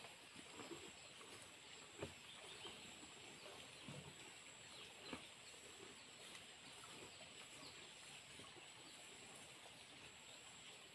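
Cows feeding on cut grass leaves in a wooden trough, heard faintly: soft rustling and a few short crunches and knocks as they pull at and chew the leaves, over a steady high hiss. A chicken clucks faintly now and then.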